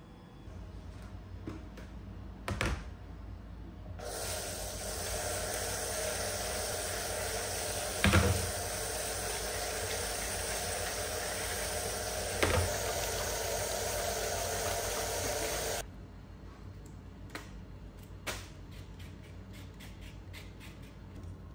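Water running from a tap in a steady rush, turned on suddenly about four seconds in and shut off abruptly about twelve seconds later, with two knocks while it runs. Quiet handling sounds and small clicks come before and after.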